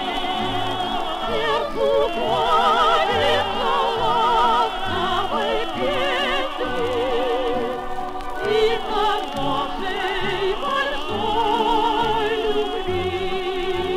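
A Soviet-era 78 rpm shellac record playing a song for a vocal trio with choir and orchestra: the singers hold notes with wide vibrato over the orchestra, with a bass line underneath.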